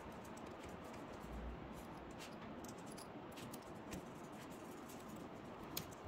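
Faint scratching and scattered light clicks of a small precision screwdriver turning hinge screws into a laptop's metal hinge bracket, with the sharpest click near the end.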